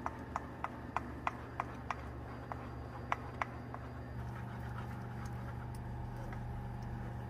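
Wooden spoon stirring thick sweet potato pie filling in a fine stainless wire-mesh sieve, making light clicks against the metal about three times a second. About four seconds in the clicks stop and a steady low hum carries on.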